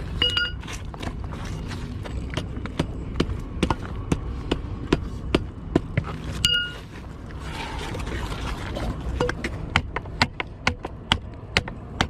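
Repeated metal taps on a rusted, waterlogged shotgun's jammed action, about two to three knocks a second, as it is struck to free it so it can be cleared. Twice a strike gives a short metallic ring.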